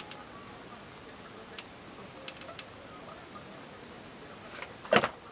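A hot glue gun being handled, with a few faint scattered clicks, then a louder clack about five seconds in as it is set down on the table.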